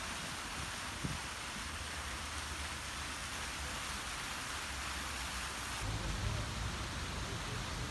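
Steady outdoor background noise: an even hiss over a low rumble. The rumble grows louder about six seconds in, and there is a single faint tap about a second in.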